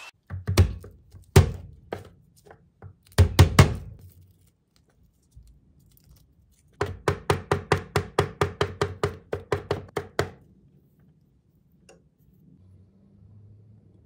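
A few single thuds, then a chef's knife chopping garlic on a plastic cutting board in a quick even run of about five strokes a second for some three seconds.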